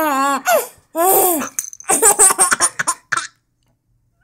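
Six-month-old baby laughing: a wavering, drawn-out laugh, another long one, then a run of quick short bursts that stops about three seconds in.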